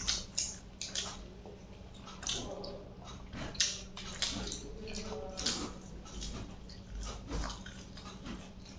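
Close-miked eating: wet chewing and lip smacks as chicken curry and rice are eaten by hand, in short irregular clicks, over a faint steady hum.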